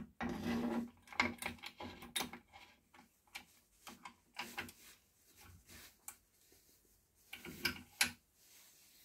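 Metal bar being set into a steel machine vise and the vise screw turned by its handle: irregular clinks and knocks of metal on metal, loudest about a second in and again near the end.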